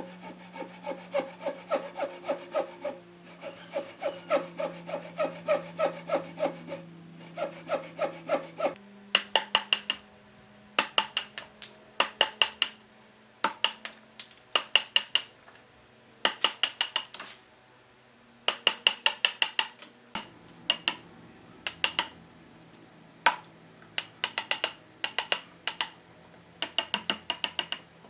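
A hand tool worked back and forth on wood in quick repeated strokes. The strokes run steadily at first, then come in short runs of a few strokes with brief pauses from about nine seconds in. A low steady hum runs underneath.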